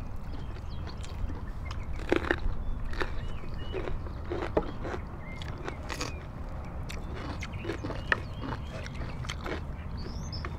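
Crisp bites and chewing of raw cucumber and other fresh vegetables, a scattered series of sharp crunches close to the microphone.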